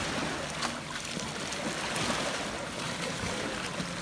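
Shallow lake water washing and splashing steadily as children swim and kick through it.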